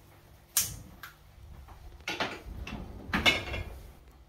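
Knocks and metallic clatter from handling a gas range's oven rack and door: a sharp knock under a second in, then two bouts of rattling, the second with a ringing metallic tone.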